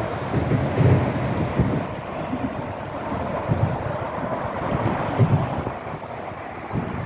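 Wind buffeting the microphone in irregular gusts over a steady rush of road traffic on the concrete bridge overhead.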